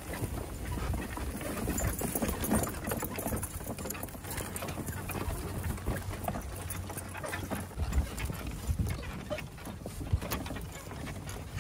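Horse's hooves clip-clopping over grass and dirt as it pulls a two-wheeled driving cart, with the cart's wheels and frame rumbling and rattling along.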